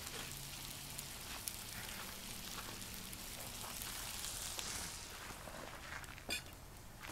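Faint, steady sizzling of trout frying in a pan, with a brief knock about six seconds in.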